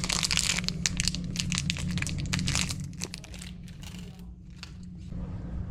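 Crinkling and rustling handling noise, dense for about three seconds and then fainter and sparser, over a steady low hum.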